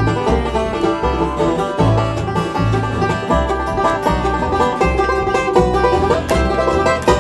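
Acoustic bluegrass band playing live: banjo picking over mandolin, acoustic guitar and upright bass.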